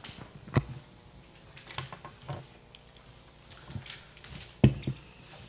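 Papers being handled and gathered on meeting tables, with scattered light knocks and clicks; the two loudest knocks come about half a second in and near the end.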